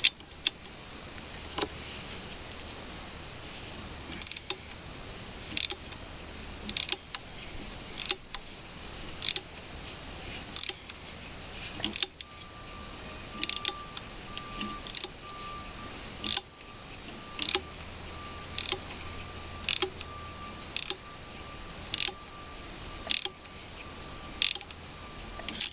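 Hand wrench tightening a 10mm nut: sharp metallic clicks and clinks about once a second as the wrench is swung and reset on the nut, some strokes doubled. A thin steady tone comes in about halfway.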